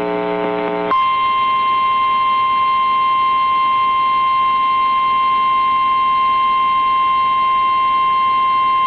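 Emergency Alert System attention signal for a severe thunderstorm warning: a short buzzy tone, then about a second in a single steady high alarm tone that holds without a break. It announces that a spoken emergency warning is about to follow.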